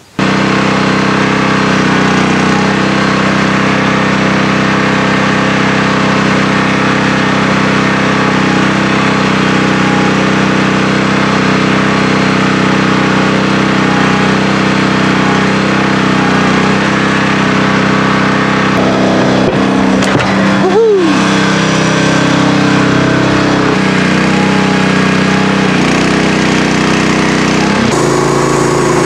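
The Norwood HD38 bandsaw mill's engine running steadily. About twenty seconds in, a brief squeal rises and falls over it.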